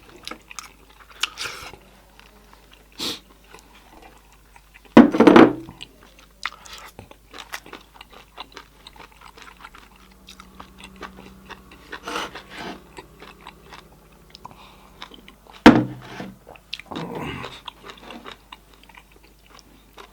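Close-up eating sounds: chewing, lip smacks and small wet clicks as cooked goat head meat is eaten off the bone. There are two louder bursts, about five seconds in and about three-quarters of the way through.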